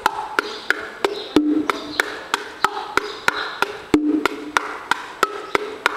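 Bongos played with bare hands in a steady Cuban rhythm: sharp slaps and short open tones several times a second, with a deeper open tone on the larger drum marking a pattern that repeats about every two and a half seconds.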